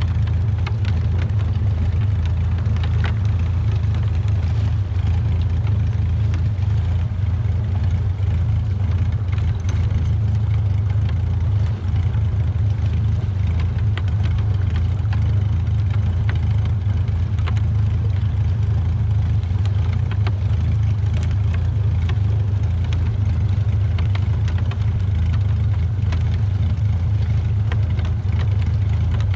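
Small fishing boat's engine running steadily at low speed, a constant low hum, while crab gill nets are paid out.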